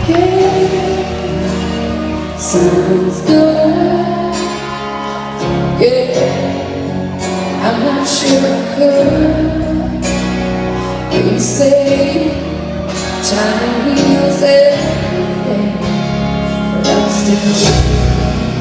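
Live country band with a female lead singer, heard from the audience in a large arena: a sung melody over guitars and drums.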